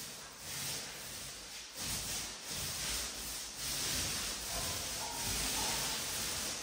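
Paint roller rolling primer onto a wall: a rasping hiss that swells and fades with each stroke.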